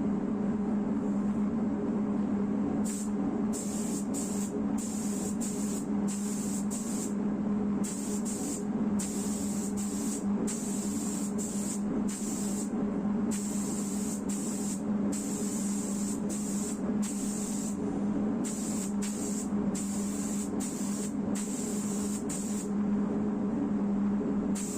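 Air spray gun spraying primer onto a car door panel in many short trigger pulls, each a brief burst of hiss, over a steady low hum.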